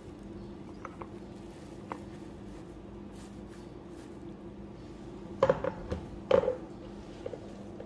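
Light knocks and clunks of a plastic food processor bowl being handled while it is filled, with two louder clattering knocks about five and a half and six and a half seconds in, over a steady low hum.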